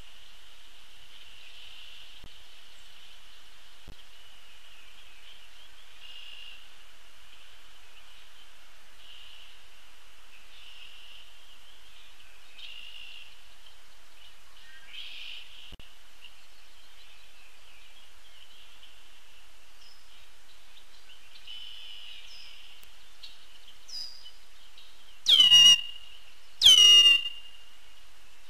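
A steady high-pitched natural chorus with faint bird calls over it. Near the end come two loud calls, each about a second long, falling sharply in pitch.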